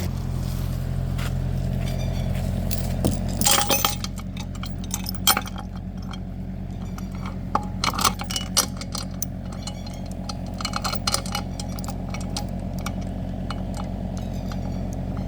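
Hard metallic clinks and rattles, a cluster of them about four seconds in and more scattered through the middle, over a steady low hum of a running motor.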